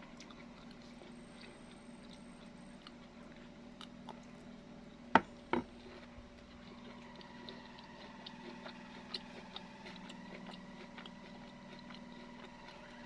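A person eating and chewing quietly over a faint steady hum, with scattered small ticks and two sharp clicks about half a second apart, roughly five seconds in.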